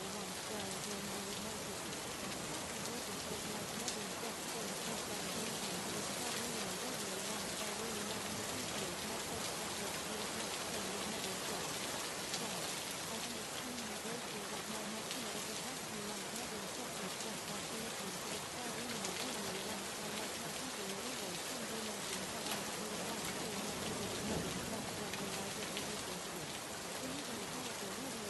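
Steady rain hiss, even and unbroken, with a faint voice speaking quietly underneath it.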